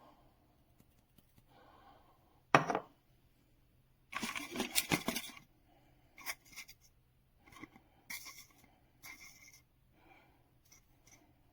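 Handling noises: a sharp knock about two and a half seconds in, then a little over a second of scraping and rattling, followed by a few shorter scrapes and clicks.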